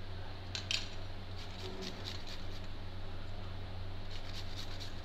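Faint clicks and taps of steel kitchenware being handled, a steel plate set on the counter and a small handheld steel grater placed on it, a few times about a second in and again near the end, over a steady low hum.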